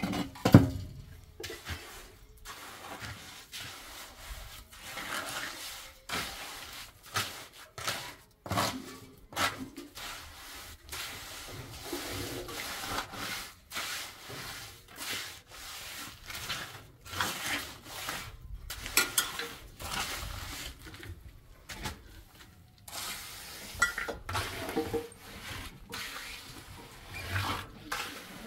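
Steel hand trowel scraping and patting wet cement mortar as it is spread and smoothed over a concrete floor, in irregular strokes. A sharp knock about half a second in is the loudest sound.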